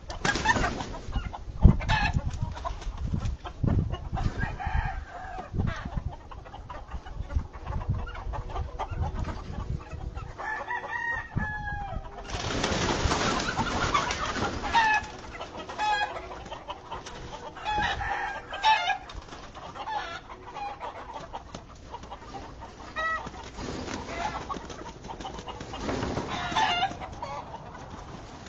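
Chickens clucking and calling, with now and then a crow. A few sharp knocks and thumps come through, the loudest about two seconds in, and there are a few seconds of loud rustling noise about halfway through.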